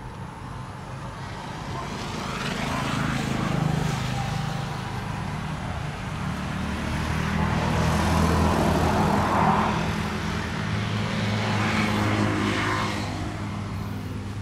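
Low, steady drone of heavy vehicle engines, swelling louder and fading again about three times.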